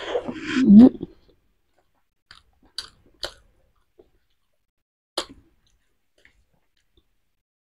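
A person eating a boiled half-incubated chicken egg: a short hummed murmur at the start, then a few sparse, sharp mouth clicks while chewing.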